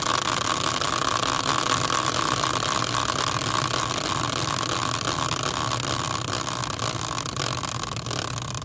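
A prize wheel built on an old caster wheel, spinning freely on its bracket: a steady whirring rush with fast, fine ticking that slowly fades toward the end as the wheel coasts down.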